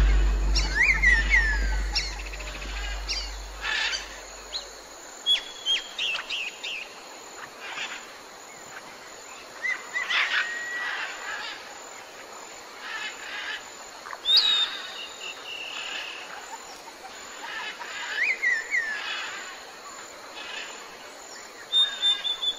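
Several birds calling over a faint outdoor background: short chirps, clear whistles and downward-sliding calls scattered throughout. A low rumble fades away in the first few seconds.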